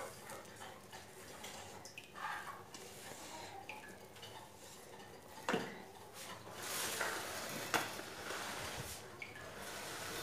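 Hand kneading soft sablé dough in a stainless steel bowl: quiet rubbing and mixing, with small knocks against the metal bowl and two sharper clinks, about five and a half and seven and a half seconds in.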